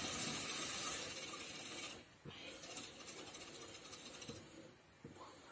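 Cold water from a kitchen tap pouring into the neck of a glass demijohn of honey and water, filling it up. About two seconds in the flow is turned down and the sound drops to a much fainter trickle, dying away near the end.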